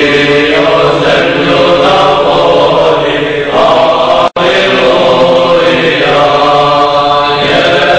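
Orthodox church chant sung by a choir, with slow held notes over a steady low drone. The audio cuts out for an instant about four seconds in.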